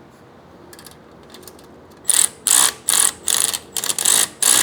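Hand socket ratchet clicking through quick repeated strokes, about two to three a second, starting about two seconds in, as a 12 mm bolt is tightened.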